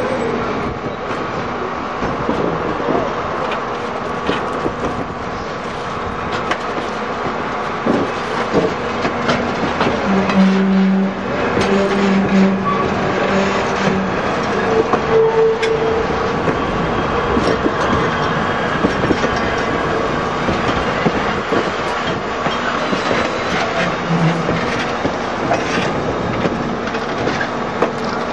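Heavyweight steel passenger coaches rolling slowly past, their wheels clicking and rumbling over the rails, with a few brief low tones about ten seconds in.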